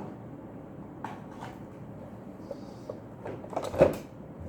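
Light clicks and knocks from handling a sandwich maker and plugging its power cord into the socket: a few scattered ones, then a small cluster with the loudest knock shortly before the end.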